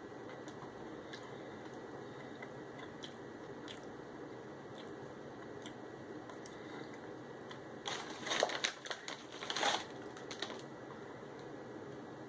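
A person eating Hostess Caramel Crunch mini donuts: faint chewing, then a cluster of louder crunchy noises about eight seconds in, lasting about two seconds.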